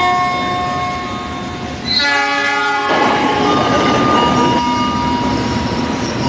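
A single horn blast lasting about a second, about two seconds in, between stretches of steady held tones and a noisy rumble.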